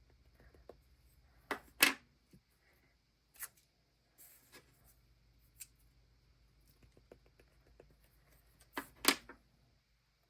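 A few sharp taps and knocks on a desk as a rubber stamp is inked and pressed onto journal paper, the two loudest about two seconds in and near the end, with lighter clicks between.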